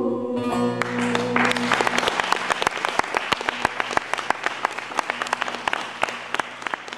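Audience applauding, starting about a second in and slowly thinning toward the end, as the last held note of the bağlama song dies away underneath.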